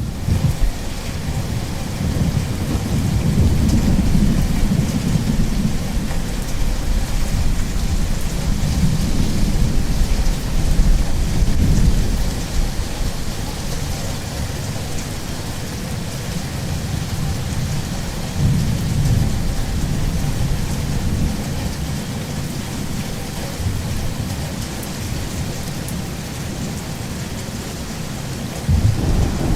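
Thunderstorm: steady heavy rain with long rolls of low thunder rumbling underneath. The thunder is loudest over the first ten seconds or so, rolls again about two-thirds of the way through, and a sharper crack-and-rumble begins at the very end.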